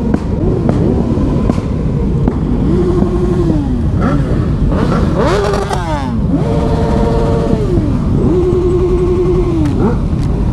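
Motorcycle engine on the move, over steady wind and road noise. Several times its pitch climbs, holds steady for a second or two, then drops off, as the rider opens and rolls off the throttle. About five seconds in, another engine's note sweeps quickly up and down.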